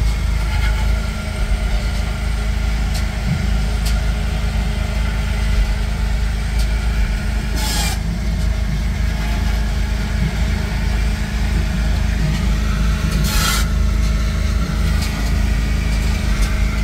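ZW50 wheel loader's diesel engine idling steadily, heard from the cab. Two brief bursts of hiss stand out about 8 and 13 seconds in.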